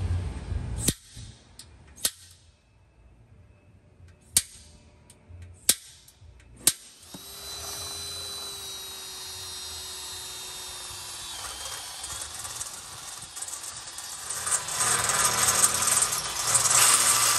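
Power drill boring plug-weld holes through a truck's steel frame rail: the motor runs with a steady whine that dips slightly partway, and the cutting grows louder and rougher near the end. A few sharp clicks come before the drill starts.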